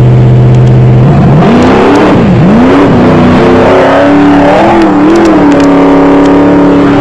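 Off-road race vehicle engine running at a steady note. From about a second in, the revs rise and fall several times as it accelerates hard, then hold at a steady higher note near the end.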